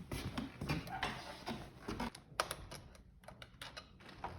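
Irregular light clicks and taps of hand tools and metal wheel parts being handled.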